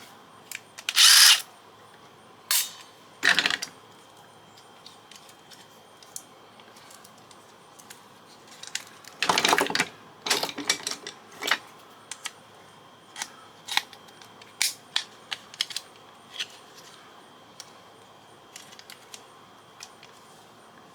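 Scattered clicks, taps and knocks of plastic and metal fax-machine parts being handled and pulled apart. Louder short bursts come about a second in, at about three seconds, and again around nine to eleven seconds.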